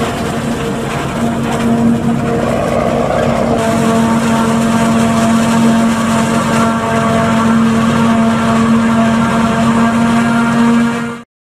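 New Holland FX 450 self-propelled forage harvester chopping standing corn with its eight-row header, a steady loud drone of engine and chopper with several held tones. It cuts off suddenly near the end.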